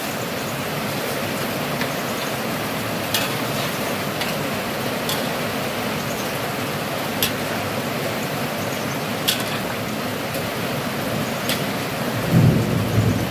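A metal ladle stirring spicy broth in an aluminium wok, clinking sharply against the pan about half a dozen times, over a steady rushing hiss.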